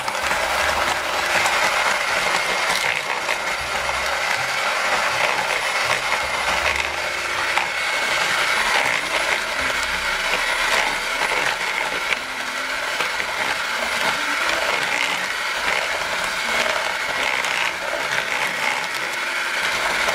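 Electric hand mixer running steadily, its twin beaters whisking flour and milk into a cake batter.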